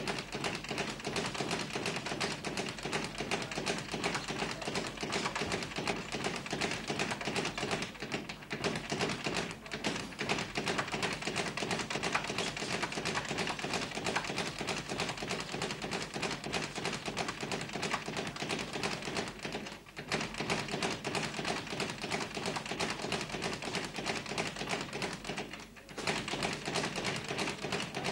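Boxing gym training: a dense, steady patter of quick taps and thuds from gloves and feet, breaking off briefly about 20 and 26 seconds in.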